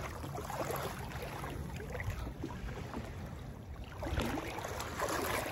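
Motorboat's engine running with a low, steady hum under wind and water noise.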